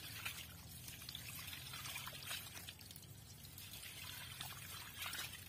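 Water pouring from a hose over fish pieces being rubbed clean by hand, a steady trickle with small irregular splashes.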